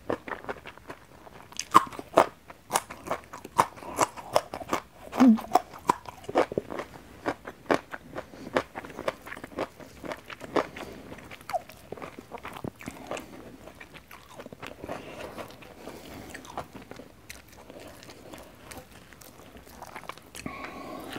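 Close-up crunching of a raw yardlong bean being bitten and chewed, many sharp crisp crunches in quick succession. After about twelve seconds the crunches thin out into softer, sparser chewing.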